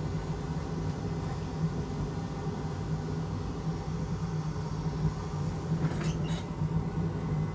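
Steady low drone of electronics rework-bench equipment running, with two or three brief faint clicks about six seconds in.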